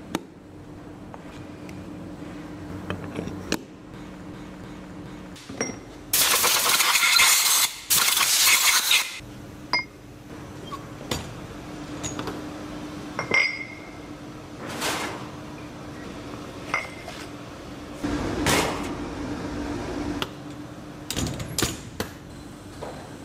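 Metal parts clinking and knocking over a steady machine hum, with a loud hiss lasting about three seconds around six seconds in. Later come clanks from the latch handles and door of a steel drying-oven cabinet being opened.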